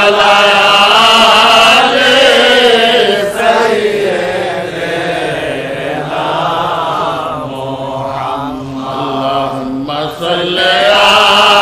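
Male voice chanting a Bengali milad, the devotional Islamic recitation in praise of the Prophet, in long held, wavering melodic phrases. There are brief breaths between phrases a little over three seconds in and again about ten seconds in, and the middle phrase is quieter.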